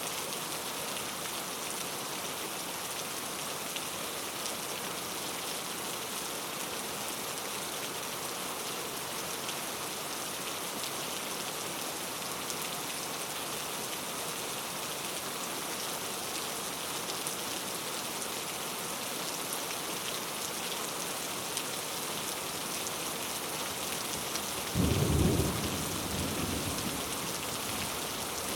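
Steady heavy rain falling on foliage and the ground in a rainforest, with a single clap of thunder near the end that rumbles away over a couple of seconds.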